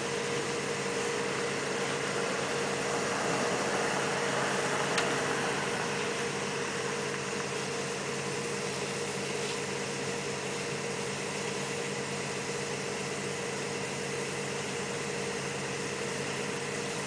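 Machinery running steadily: an even mechanical drone with a constant hum. A single faint tick about five seconds in.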